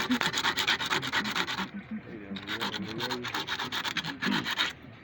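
Fast back-and-forth rubbing or scraping strokes by hand on a hard surface, in two runs with a pause of about a second between them.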